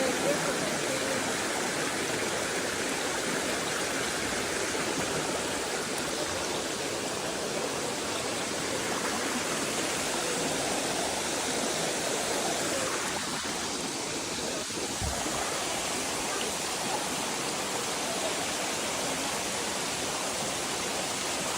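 Steady rush of fast-flowing water.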